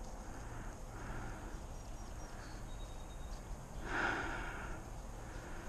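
Faint outdoor background with a person breathing close to the microphone, and one louder exhale about four seconds in.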